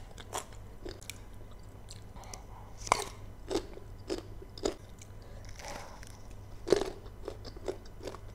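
Close-up chewing of crisp unripe green mango, with a series of short, sharp crunches; the loudest come about three seconds in and near seven seconds.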